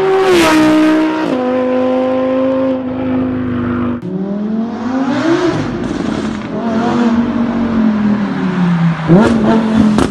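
Audi R8 V10 with a QuickSilver Active Titan titanium sport exhaust, valves open. One car passes at speed with its pitch stepping down. Then another approaches, its revs rising and falling, and it ends with a sharp rise and a few short cracks.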